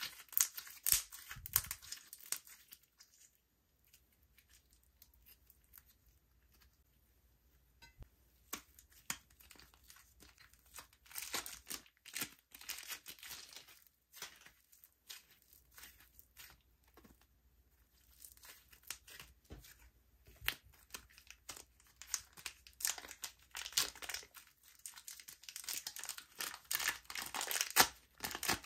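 Slime being stretched, squeezed and mixed by hand, making sticky crackling and popping sounds in bursts. There is a quiet pause a few seconds in, and the handling is busiest toward the end.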